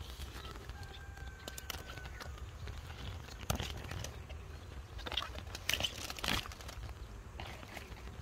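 Rustling and crinkling of green chili pepper plants handled up close, with irregular sharp crackles and snaps, most of them in the second half. A steady low rumble runs underneath.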